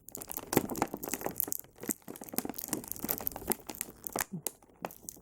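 Plastic action-figure packaging crinkling and crackling in irregular bursts as the figures are worked loose from their tray and rubber bands.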